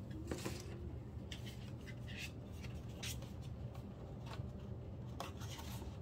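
Photocards and album packaging being handled and sorted by hand: irregular light rustles and clicks of card and plastic, over a steady low hum.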